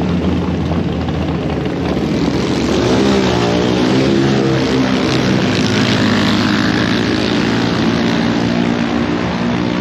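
A motor-vehicle engine running close by, its pitch rising and falling about three to five seconds in.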